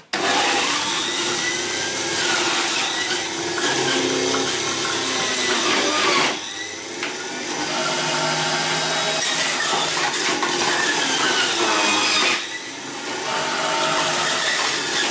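Philips 1000 W stainless-steel centrifugal juicer switching on abruptly and running, its spinning blade grinding fruit pressed down the feed chute. The grinding drops briefly twice, about six and twelve seconds in.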